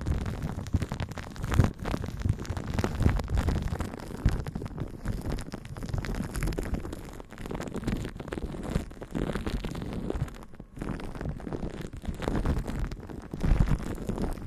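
Dense, irregular crackling and rubbing noises very close to the microphone, with a heavy low rumble and no steady tone.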